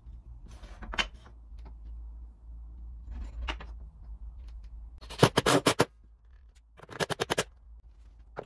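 Steel squares and small wooden blocks being handled on a workbench: a few single knocks, then two short bursts of quick rattling clicks about five and seven seconds in, the first the loudest.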